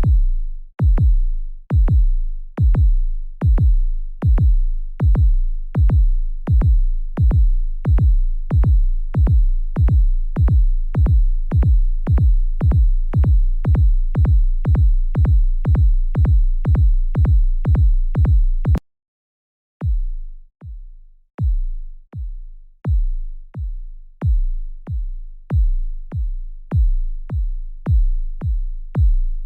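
Suspense sound effect made of deep electronic bass-drum hits, each with a sharp click on top, repeating and speeding up. The hits cut off abruptly about two-thirds of the way through, and after about a second of silence they start again more slowly and quicken once more.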